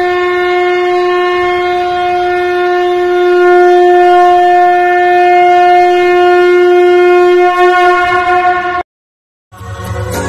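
A conch shell (shankh) blown in one long, steady, loud note that wavers over its last second and cuts off after almost nine seconds. Music begins after a brief silence near the end.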